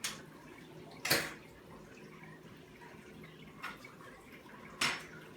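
Four short, sharp clicks and light knocks of small parts being handled, the loudest about a second in, over a faint steady hum.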